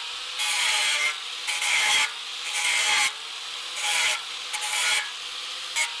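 Angle grinder grinding the steel subframe of a Nissan 370Z in about four passes of roughly a second each, with its steady motor whine carrying on between them. It is cleaning patches down to bare metal, in preparation for welding on reinforcement plates.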